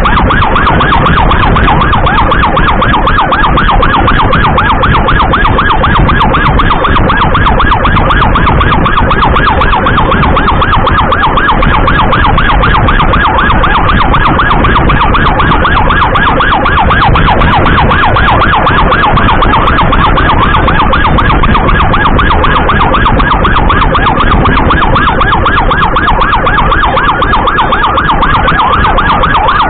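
Emergency siren sounding continuously in a rapid warble, over the rush of wind and road noise of a moving motorcycle.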